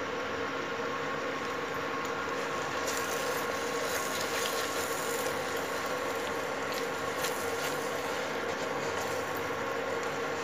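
Thick pav bhaji cooking in butter and oil in a nonstick pan, with a silicone spatula stirring and scraping through it in quick strokes from about three seconds in. A steady hum runs underneath.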